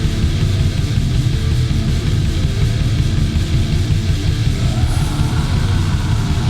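War metal recording: heavily distorted electric guitars and drums playing at a constant loud level.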